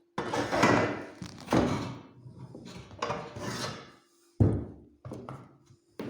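A series of about six knocks or clanks, each dying away over half a second or so.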